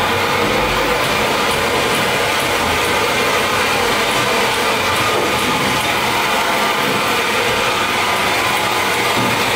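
Espresso-bar coffee grinder running steadily, a loud, even mechanical grinding noise.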